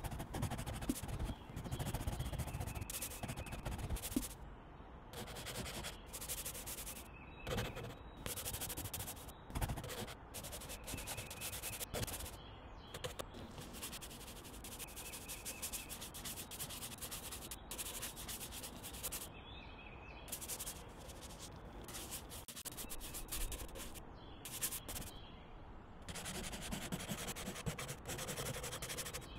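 Soft pastel scratching and rubbing across sketchbook paper, in short strokes that keep stopping and starting.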